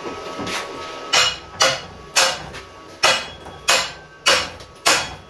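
Hammer striking a metal piece mounted on a bench drill press: seven sharp blows, about one every half second to second, starting about a second in. They are knocks to bend the piece, which has sagged downward, back into line.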